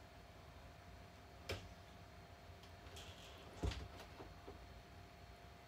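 Quiet room tone with a faint steady hum, broken by two soft clicks, one about a second and a half in and a slightly louder low knock about three and a half seconds in.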